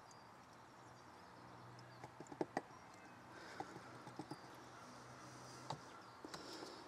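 Faint, scattered light clicks and knocks of hard plastic and metal as an unscrewed oil filter housing cap is lifted out of the engine bay and handled over a plastic tub, with a low steady hiss underneath.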